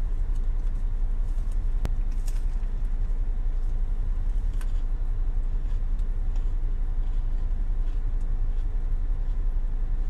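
Steady low rumble of an idling car heard from inside the cabin, with faint scattered crunching clicks of someone chewing a crispy fried chicken sandwich.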